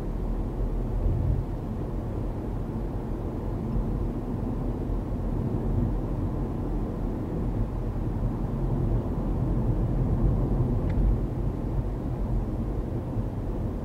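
Steady low road and engine rumble inside a moving car's cabin, with one faint tick about eleven seconds in.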